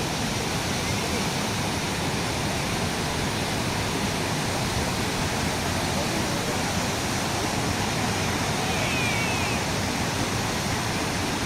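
Water of the Bogatha waterfall pouring down: a steady, even rush of noise that does not change.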